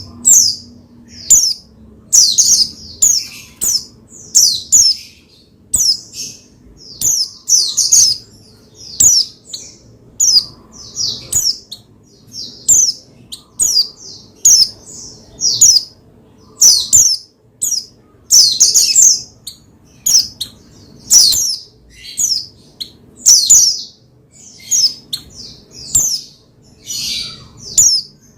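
White-eye (pleci) singing excitedly: short, rapid bursts of high, twittering chirps, repeated every second or so without letting up.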